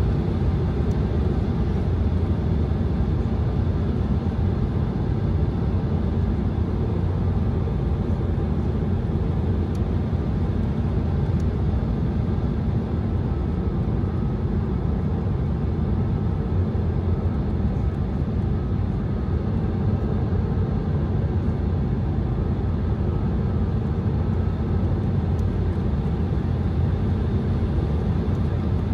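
Steady cabin noise inside an Embraer 175 jet: an even low rumble with a hiss above it, unchanging throughout.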